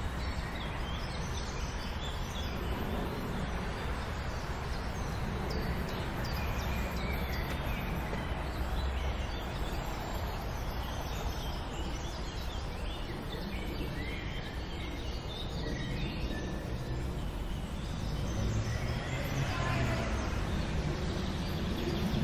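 Outdoor ambience: a steady low rumble with scattered bird chirps, swelling slightly near the end.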